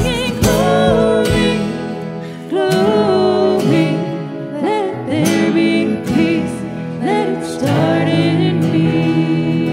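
Live church worship band playing and singing a praise song: voices in harmony over acoustic guitars, with a steady beat in the first second or so, then long held sung notes.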